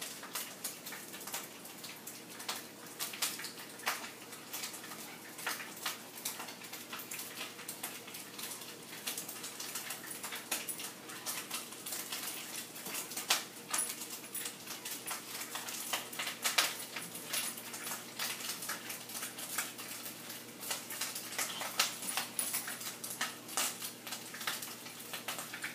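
A small dog and kittens scuffling in play: irregular quick clicks and taps of claws and paws on a hard floor.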